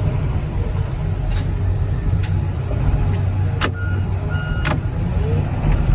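Heavy hydraulic machine's engine running steadily, heard from inside the cab as the machine swings. About three and a half and four and a half seconds in there are two sharp knocks, with two short beeps between them.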